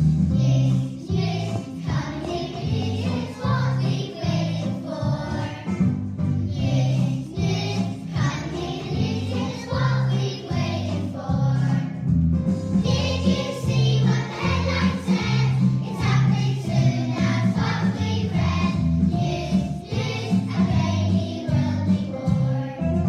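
A young children's choir singing a song together over an instrumental accompaniment with a steady bass line.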